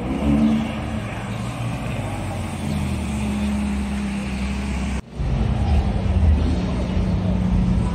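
Ferrari California's V8 running at low speed in street traffic, with a couple of brief light revs. After a sudden cut about five seconds in, a McLaren's twin-turbo V8 runs louder and rougher as the car drives along.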